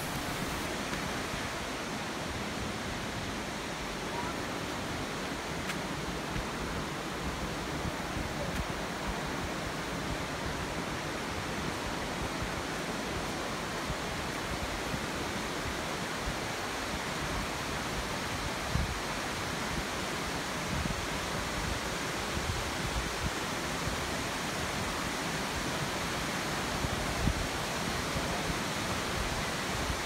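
Steady hiss of rushing water from a rocky stream and waterfall, even and unbroken.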